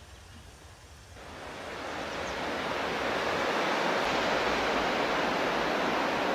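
A mountain river rushing over rapids: a steady hiss of white water that fades in over the first couple of seconds.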